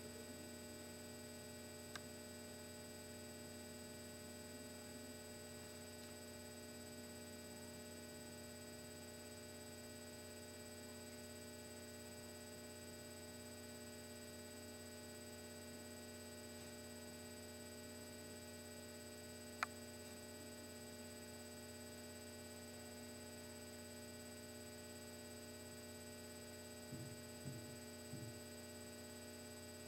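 Steady, faint electrical hum made of several constant tones, with one sharp click about two-thirds of the way through and a few soft little knocks near the end.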